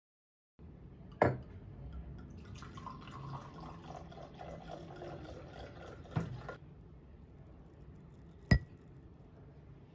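White wine poured from a bottle into a stemmed wine glass, a splashing hiss lasting about four seconds with a knock near its end. Near the end, a single sharp, ringing clink of glass.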